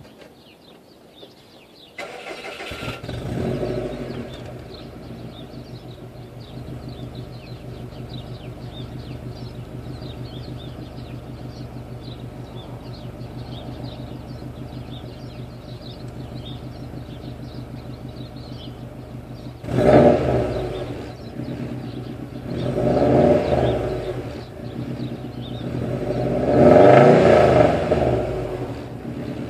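2002 Subaru WRX's turbocharged EJ205 flat-four, breathing through a 3-inch downpipe and a 2005 STI catback exhaust, starts about two seconds in with a brief flare. It then idles steadily, and near the end it is revved up and back down three times.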